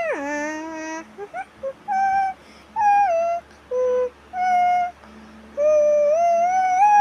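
An animal's voice giving a string of short whining calls that slide up and down in pitch, then a long, drawn-out howl starting near the end.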